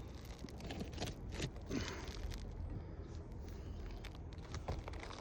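Scattered scuffs and light clicks of someone moving about on an asphalt shingle roof and handling the shingles, over a low steady rumble.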